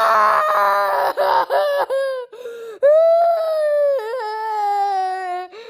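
Child crying: a run of quick sobbing cries in the first two seconds, then one long wail that slowly falls in pitch.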